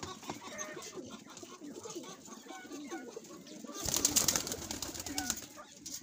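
Domestic pigeons cooing, short repeated coos overlapping throughout. About four seconds in, a loud rustling burst lasts a second or two.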